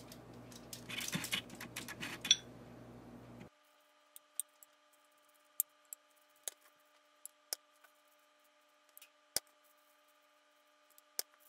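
Faint rustling and light clicks of a pastry brush dabbing egg wash onto puff pastry pockets on a foil-lined baking tray. The rustling is strongest in the first couple of seconds; after that only scattered single clicks remain.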